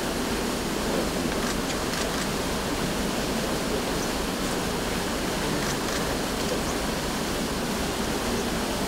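A steady, even rushing noise with no speech or music, with a few faint high ticks over it.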